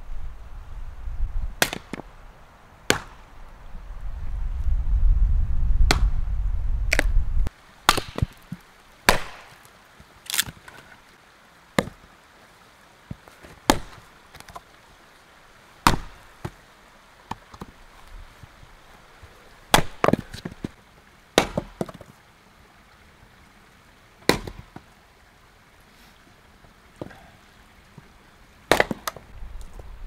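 An axe splitting firewood on a chopping block: sharp wooden cracks every second or two, each strike standing alone. Wind rumbles on the microphone for the first seven or so seconds, then cuts out.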